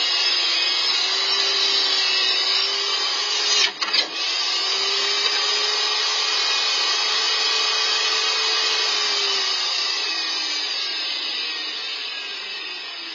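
Portable table saw running steadily, with a sudden sharp double bang about four seconds in as a binding workpiece kicks back off the blade. The saw keeps running afterwards and grows quieter near the end.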